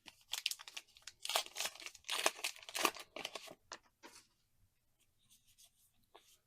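A trading-card booster pack wrapper being torn open in a run of quick rips and rustles for about four seconds, then fainter crinkling of the wrapper and cards.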